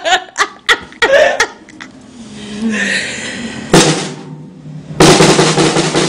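Drum kit being played: a few scattered, uneven hits on the snare and drums, a quieter pause, one loud single hit, then a fast, dense snare drum roll starting about a second before the end.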